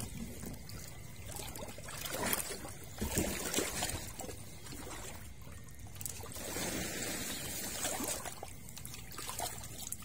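Water trickling and pouring, with a few light knocks a couple of seconds in.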